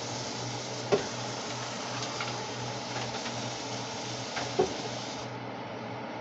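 A kitchen utensil clinks twice against a cooking pot, about a second in and again about four and a half seconds in, over a steady hiss and low hum.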